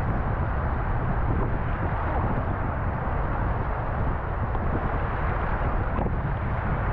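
Steady wind rumbling on the microphone, over small waves breaking and washing in the shallows of a stony shore.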